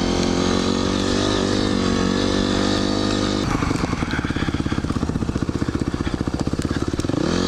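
Dirt bike engine running under the rider, steady at first. About halfway through it drops to a slow, pulsing low-rev putter, then revs up again near the end.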